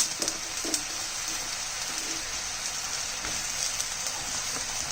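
Cooking pot on the stove sizzling steadily, with a couple of light knocks in the first second.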